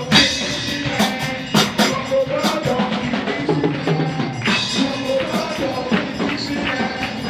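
Live church praise music: a drum kit and tambourine keep a steady beat under pitched instruments.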